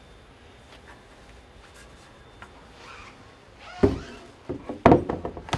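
A large board of old figured redwood being handled, knocking: one sharp wooden knock almost four seconds in, then a quick cluster of knocks and clatters near the end.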